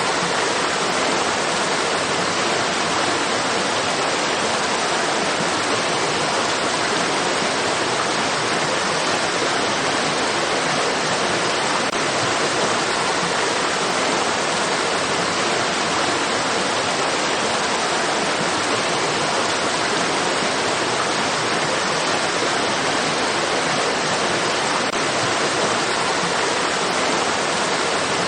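Stream water rushing in a steady, even white-noise-like hiss, with no changes.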